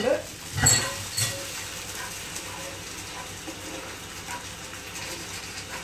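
A spatula knocks against a nonstick pan twice early on. Then the curry in the pan gives a faint, steady sizzle as it is stirred.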